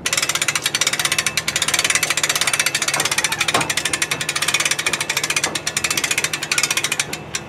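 A small engine running at a fast, even putter: a rapid steady train of sharp pulses over a low hum.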